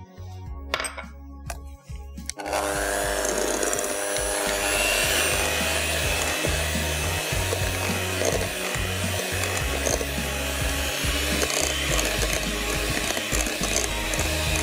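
Electric hand mixer switched on about two and a half seconds in, then running steadily with its beaters whirring through banana cake batter in a glass bowl.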